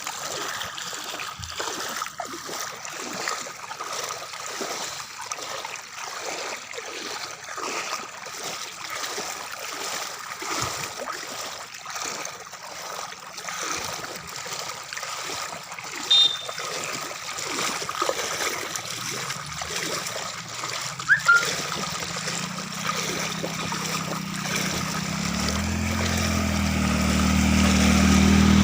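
Floodwater flowing and splashing steadily. A motor vehicle's engine comes in from about two-thirds of the way through and grows louder toward the end.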